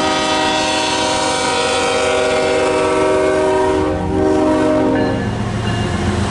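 Freight locomotive's multi-chime air horn sounding one long blast, a brief break about four seconds in, then a shorter blast that ends near the five-second mark. The low rumble of the passing diesel locomotive and train carries on after it.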